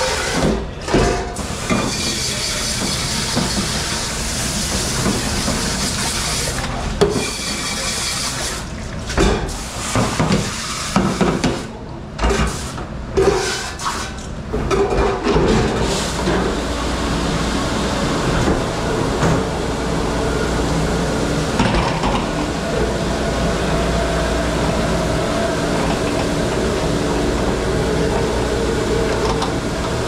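Running water during dishwashing, with irregular clattering over roughly the first half, then a steady rush of water to the end.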